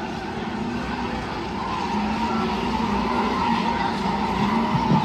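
A pack of race cars running laps, engines going steadily, with tires squealing through the turns. It grows louder from about halfway through.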